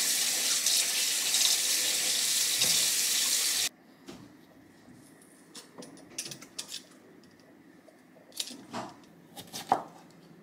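Kitchen tap running into a steel sink as potatoes are rinsed, cutting off suddenly about a third of the way in. After that it is quiet, with faint scraping and a few short knocks from peeling and cutting potatoes.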